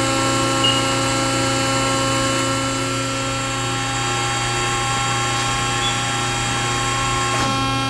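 Accurpress 7608 CNC hydraulic press brake running at idle: its hydraulic pump and motor give a steady hum with several steady whining tones above it.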